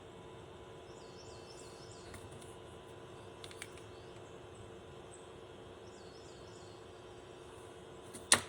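Faint bird chirps in short repeated phrases over a steady low hum, with a couple of light clicks midway and one sharp click near the end.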